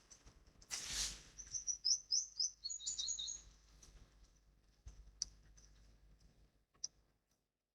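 A small bird chirping, a quick run of short high notes lasting about two seconds, with two brief rushing noises just before it.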